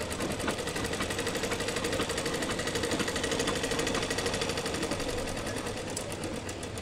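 Sewing machine stitching cloth: a fast, even rattle of needle strokes, getting a little louder toward the middle and easing slightly near the end.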